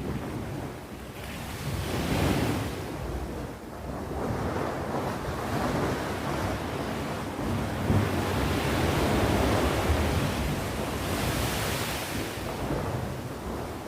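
Sea waves breaking and washing on the shore, swelling and easing in slow surges, with wind buffeting the microphone.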